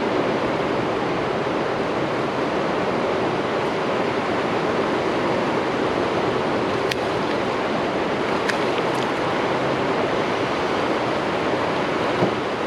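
Steady rush of water pouring through the dam gates and churning in the tailwater, an even roar with no pauses, with a few faint ticks over it.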